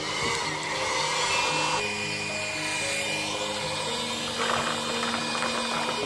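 Small electric air blower running steadily with a rush of air, blowing the dust off lumps of hardwood charcoal.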